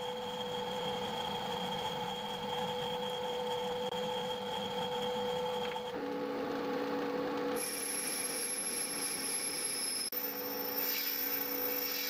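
Metal lathe running while machining a Meehanite cast-iron bar, a steady whine of several tones over a grinding hiss. The pitch set shifts abruptly about halfway through and again twice near the end.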